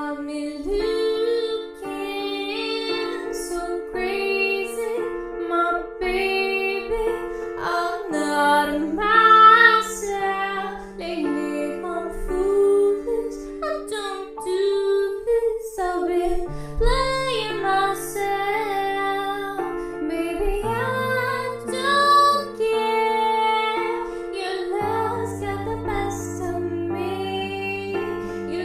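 Background music: a female voice singing a melody over long held low accompanying notes.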